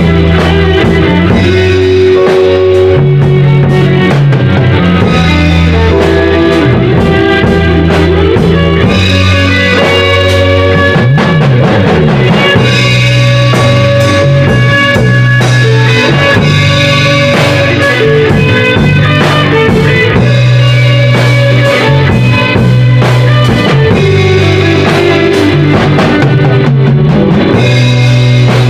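Live rock band playing an instrumental blues jam: electric guitars, keyboard and a drum kit over a low bass line that shifts every couple of seconds.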